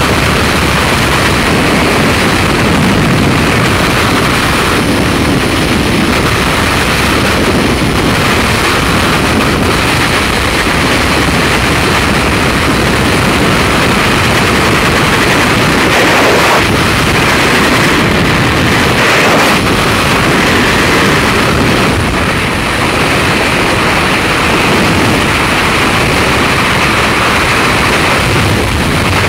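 Freefall wind rushing over a skydiver's camera microphone: a loud, steady rush of air noise.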